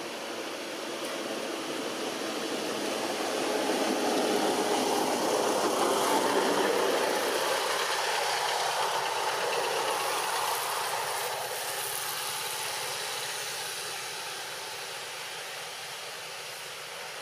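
Steady engine noise of a passing vehicle, swelling over the first few seconds to its loudest around the middle, then slowly fading away.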